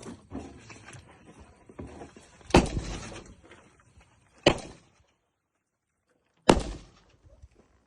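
Three sharp shots from an airsoft marksman rifle, about two seconds apart, each with a short echoing tail, over faint handling rustle.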